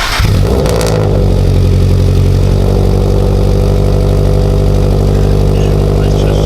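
Subaru flat-four boxer engine with freshly fitted Tomei unequal-length headers catching at start-up, flaring briefly, then settling into a steady idle within about a second. This is the first start after the header install, when exhaust leaks would show.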